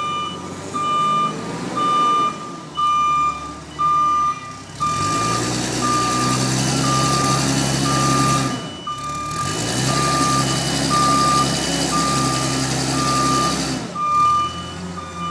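A vehicle's reversing alarm beeps steadily, about twice a second. The vehicle's engine runs louder from about five seconds in, dips briefly midway, and eases off near the end.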